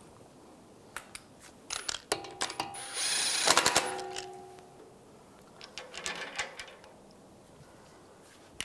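Metal clicks and clinks of a wheel's lug bolts being fitted and started into the hub, with a loud burst of tool noise about three seconds in that lasts about a second and leaves a short metallic ring.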